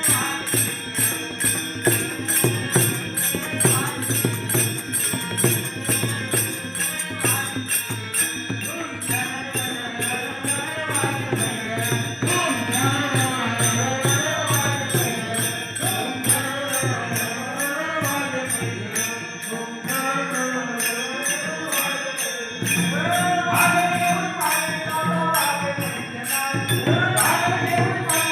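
Devotional bhajan singing: a single voice sings a winding melody over jingling percussion that keeps a steady, even beat and a low sustained accompaniment. The singing enters about a third of the way in and grows louder and higher near the end.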